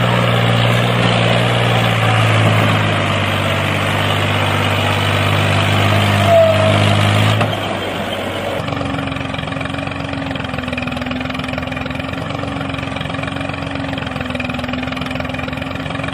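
A motor running steadily with a low hum. About seven and a half seconds in it gets quieter and changes to a higher, steady drone.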